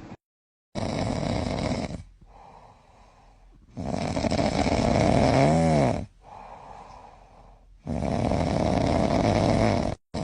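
Snoring: three long, loud snores about three seconds apart, with quiet breaths between them. The middle snore slides up and down in pitch.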